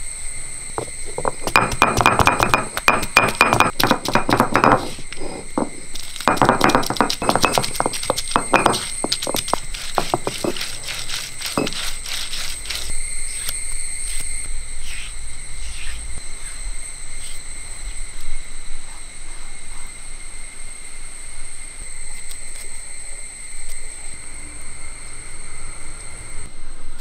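Ginger and garlic crushed on a flat grinding stone with a stone pestle pounded end-down: rapid runs of hard stone-on-stone knocks, a first spell about two seconds in and a longer one after a short pause, thinning out to scattered faint clicks.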